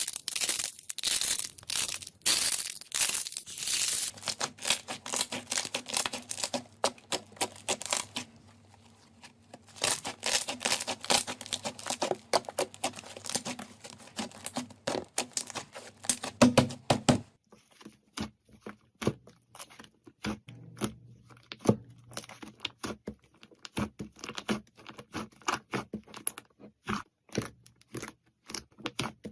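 Slime being squeezed, stretched and pressed by hand, giving quick crackles and pops. The crackling is dense at first, eases off briefly, then turns sparser and quieter about seventeen seconds in.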